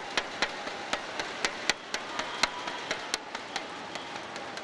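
Arena crowd clapping and banging inflatable thundersticks after a won rally: an irregular clatter of sharp bangs, about three a second, over a steady background of crowd noise.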